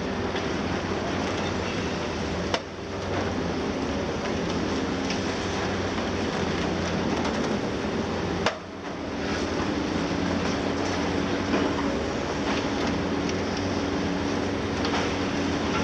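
Liebherr 954 long-front demolition excavator's six-cylinder diesel running steadily as it works, with scattered clatter of breaking concrete. Two sharp knocks come about two and a half seconds in and about eight and a half seconds in.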